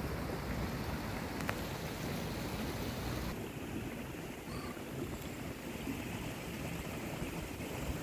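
Steady rain falling on a pond, an even hiss of water.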